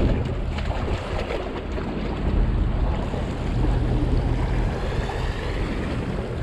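Steady low engine hum of a boat with wind and water noise on the microphone.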